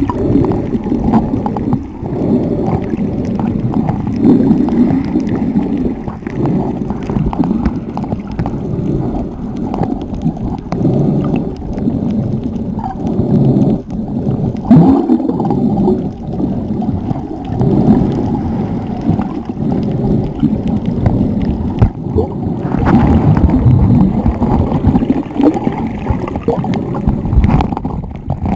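Muffled, churning water and bubbling gurgles picked up by an action camera held underwater, the sound dull and heavy with almost nothing high-pitched.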